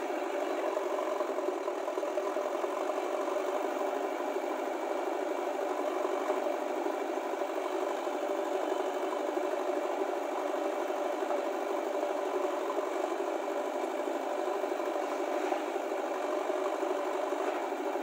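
Diesel engines of a farm tractor and a JCB backhoe loader idling steadily while both machines stand still.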